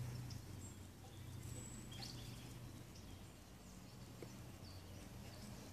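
Faint open-air background: a low steady hum with a few faint, short high bird chirps.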